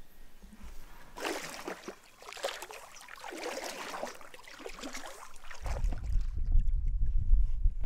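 Kayak paddle strokes dipping and swishing through calm water. About two-thirds of the way in, a loud, gusty low rumble of wind buffeting the microphone takes over.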